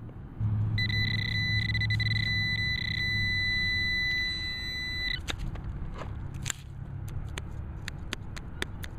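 Fisher F4 metal detector sounding a steady high-pitched target tone for about four seconds, breaking up briefly a few times, over a low hum; after it stops, a run of sharp clicks.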